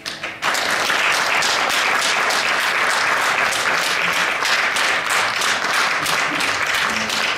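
Audience applauding, starting about half a second in and holding steady.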